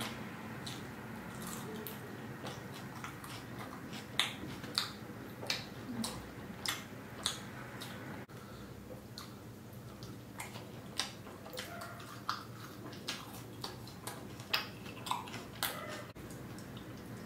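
Close-up chewing of paneer tikka masala and naan: a string of short wet mouth clicks and lip smacks, roughly one or two a second, over a faint steady hum.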